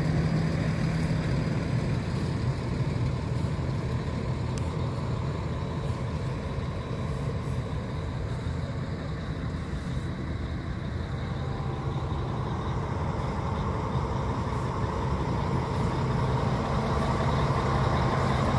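City bus diesel engine idling steadily, a low hum that eases off somewhat midway and grows louder again near the end.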